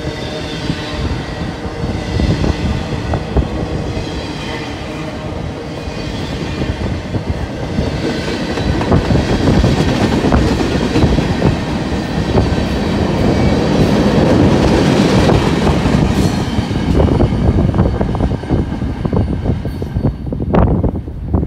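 Freight train rolling past: a steady rumble of wheels on rail with clickety-clack and faint high wheel-squeal tones early on. It grows louder toward the middle, with sharp clicks near the end.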